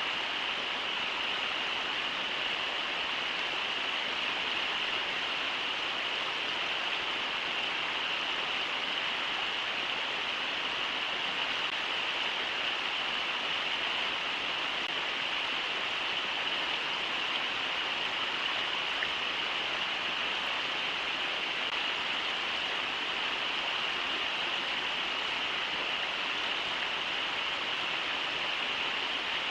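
River water rushing steadily over shallow riffles in the Brooks River.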